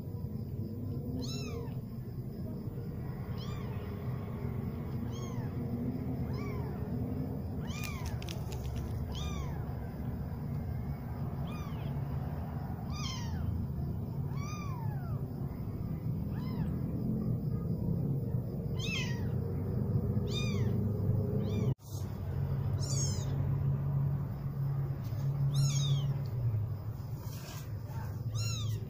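Young tabby kitten mewing over and over: thin, high cries that fall in pitch, one every second or two.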